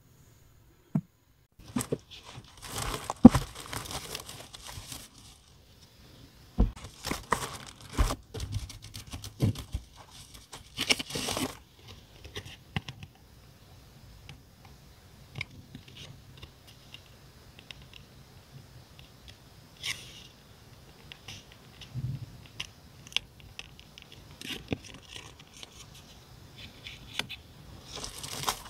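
Paper and plastic packaging being handled and opened by hand: irregular bursts of rustling, crinkling and tearing, with sharp light clicks and taps in between.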